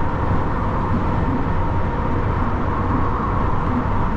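Truck cruising on the motorway: steady engine drone and road noise, with an even low hum.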